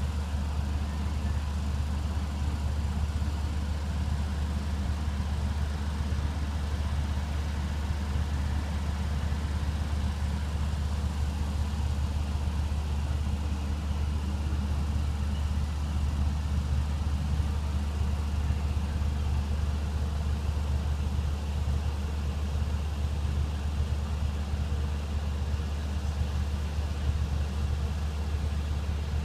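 An engine running steadily, a low, even hum that holds unchanged throughout.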